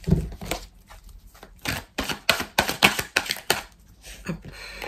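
A deck of oracle cards being shuffled and handled: a run of quick, sharp card clicks and flicks, thickest about halfway through, with a brief swish of cards near the end.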